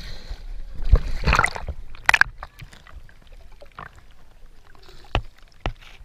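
Lake water splashing and sloshing around a gloved hand releasing a bluegill at the surface, with a few sharp knocks and splashes. Later the sound turns quieter and muffled, with scattered clicks, as the microphone goes under the water.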